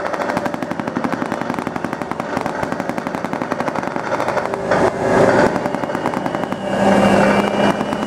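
Rapid, continuous automatic gunfire, a steady rattle of sharp cracks at about ten a second. From about six and a half seconds in, an armoured vehicle's engine whine comes in under it.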